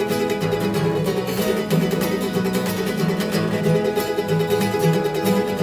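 Background music led by plucked strings, playing a tune with a steady rhythm.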